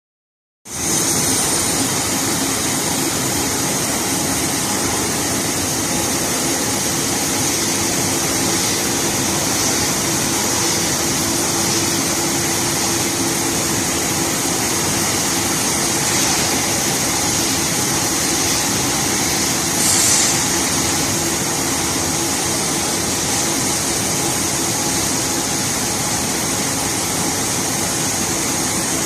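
Industrial U-shaped crate washing machine running, a steady machine hum with hiss over it, starting just after the opening moment, with a brief louder swell about two-thirds of the way through.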